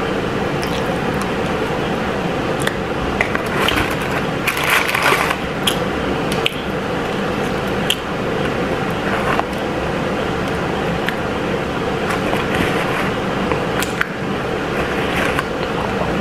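Close-up eating sounds of someone chewing and biting Popeyes fried chicken tenders: scattered short crunches and wet mouth noises, busiest about four to five seconds in, over a steady background hum.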